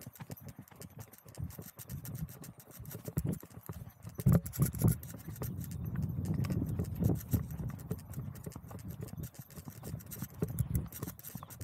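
Horse's hooves clip-clopping on a dirt and grass track, heard from the saddle, over a low rumble that swells and fades, loudest about halfway through.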